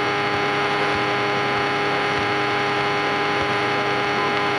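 Steady hum with hiss from a Cessna 172 in flight: the engine and propeller drone heard through the aircraft's radio and intercom audio, between tower transmissions.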